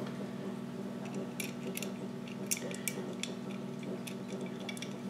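Light metallic clicks and taps of a small screw, hex key and rail segment being handled and fitted onto an airsoft rifle's rail handguard, scattered mostly through the middle, over a steady low hum.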